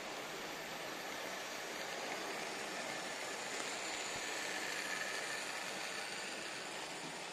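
Märklin analog model train, a small diesel shunter hauling loaded car-transporter wagons, running along the track: a steady whir and rattle of motor and wheels that grows a little louder in the middle as the train passes close by.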